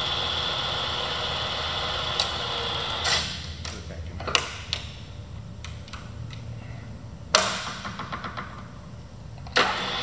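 Bridgeport 1 HP step-pulley vertical mill running with a steady hum and a high whine, plus a rattle from the air-powered drawbar on top of the head, which is harmless. About three seconds in the running sound stops. A few clicks and one sharp metal clack come while it is stopped, and the mill starts again with a sudden onset near the end.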